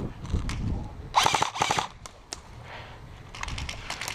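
Airsoft guns firing: a rapid full-auto burst of sharp clicking shots about a second in, a couple of single shots, then another fast string of shots near the end.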